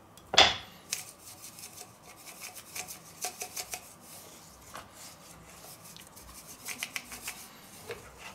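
Hand-twisted salt mill grinding salt onto a raw veal chop in two short spells of quick rasping clicks, one a couple of seconds in and another near the end. About half a second in, the chop is flipped and slapped down onto a wooden board, the loudest sound.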